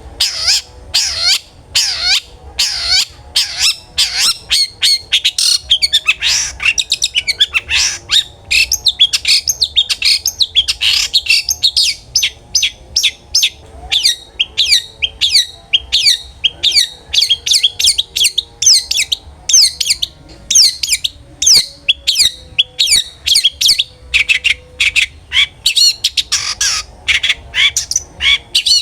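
Long-tailed shrike (cendet) singing loudly in a fast, near-continuous chatter of sharp, sweeping notes, several a second.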